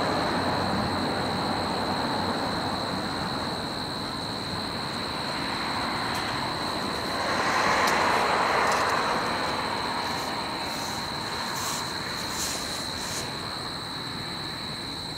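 Boeing 787 jet engines rumbling on the landing roll just after touchdown, fading as the airliner rolls away. About eight seconds in the engine noise swells briefly with reverse thrust, then dies down again.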